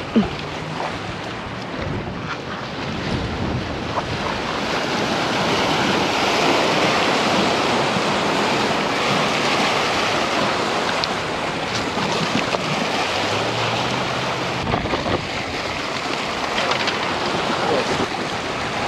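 Ocean waves washing against the jetty rocks, with wind buffeting the microphone; a single sharp knock right at the start.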